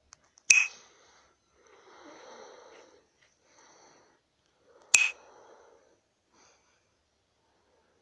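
Two sharp clicks about four and a half seconds apart, with faint rustling between them: a phone being tapped and handled.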